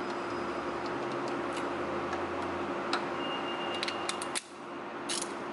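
Scattered light clicks and taps of metal fittings and hand tools as an A/C suction hose is fitted back in an engine bay, over a steady background hum. The clicks come closer together about three to four seconds in and again near the end, and the background drops away suddenly for a moment about four and a half seconds in.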